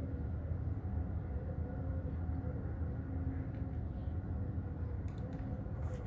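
Steady low rumble with a faint hum, even in loudness, and a few light clicks near the end.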